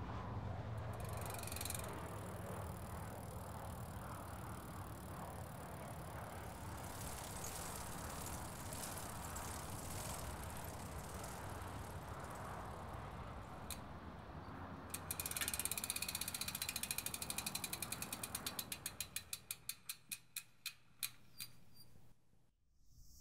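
Bicycle freewheel ticking as the bike coasts: a fast run of clicks that slows and spaces out until it stops. Before it, a steady hiss of street background.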